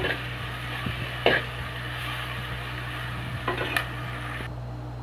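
Sliced small onions sizzling in hot coconut oil in a clay pot, stirred with a steel spoon that clinks and scrapes sharply against the pot a few times. The high hiss of the frying thins out near the end.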